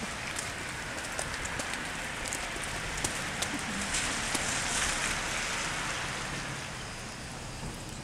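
Wet snow falling on umbrellas and the wet street: a steady hiss with many small taps.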